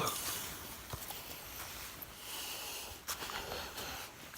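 Footsteps through leaves and brush on a forest floor, with a few faint crunches.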